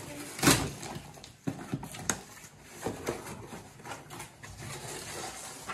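Cardboard shipping box being handled and opened: a loud thump about half a second in, then scattered light knocks and cardboard scraping as a boxed item is pulled out of it.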